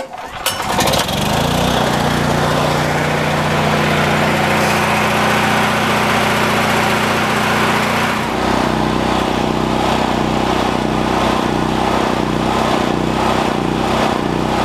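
PowerMax XP8500E portable generator's engine pull-started on its recoil cord, with the electric start unused because its battery is dead. It catches within about a second, its note rising as it comes up to speed, then runs steadily.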